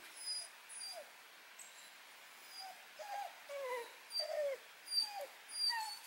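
Dog whining in a run of short, falling whimpers that come more often in the second half.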